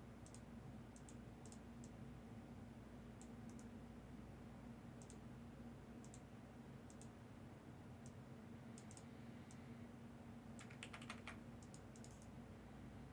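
Faint, scattered clicks of typing on a computer keyboard, with a short flurry of taps about ten and a half seconds in, over a low steady hum.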